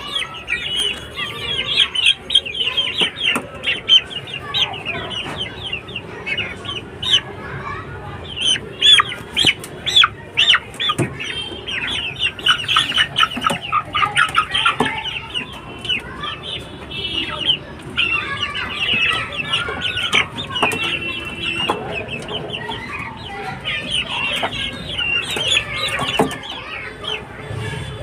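Several young aseel chickens calling in a constant stream of short, high-pitched peeps that overlap one another.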